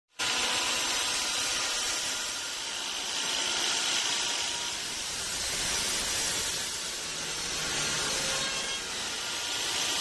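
Log band sawmill cutting teak: the band-saw blade rasps steadily through the wood over the running machine, swelling and easing slightly in loudness.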